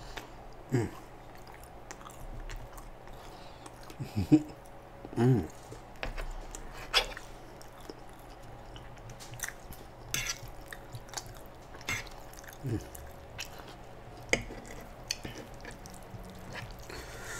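Close-miked mouth sounds of a man chewing food: wet smacking and clicking, with a few short hums that fall in pitch.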